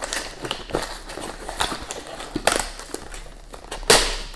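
Cardboard shipping box being cut and torn open by hand: irregular scraping, rustling and tearing of the cardboard, with the loudest tear near the end.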